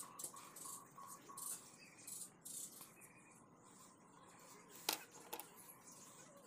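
Coloured pencil scratching on paper in quick colouring strokes, faint. Two sharp clicks about five seconds in.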